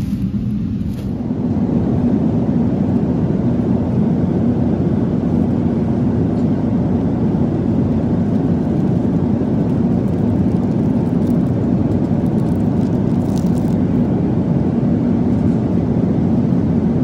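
Steady rumble and hum inside the cabin of a Boeing 777-300 airliner, its engines and air system running as it taxis, growing a little louder in the first couple of seconds.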